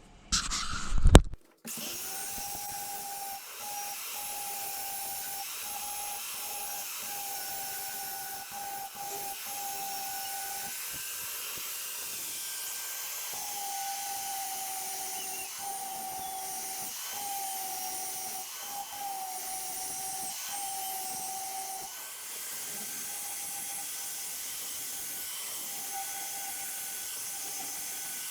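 Electric grinder running steadily while grinding on a steel hatchet head, its motor whine dipping briefly several times as it is pressed into the work, over a constant grinding hiss.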